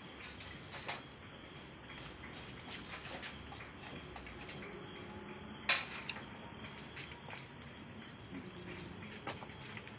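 Crickets chirping steadily in the background, with a few scattered sharp clicks; the loudest click comes a little past halfway.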